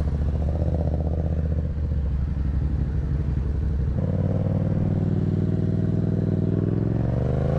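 Yamaha MT-07 parallel-twin with a Black Widow aftermarket exhaust idling steadily. About four seconds in the note changes, and near the end the revs climb smoothly.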